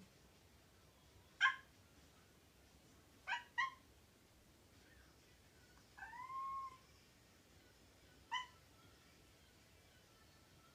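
Domestic cat making short, sharp bark-like calls like a puppy's: four brief yips, two of them in quick succession, and one longer meow that rises and falls about six seconds in.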